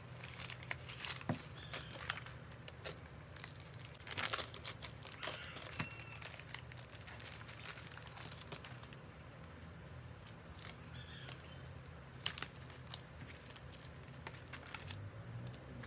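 Plastic bubble mailers crinkling and rustling as they are handled and stacked, in irregular bursts with a sharp crackle about twelve seconds in.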